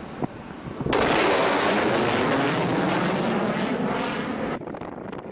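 Jet aircraft passing low overhead: a loud, steady roar that starts suddenly about a second in and cuts off sharply near the end.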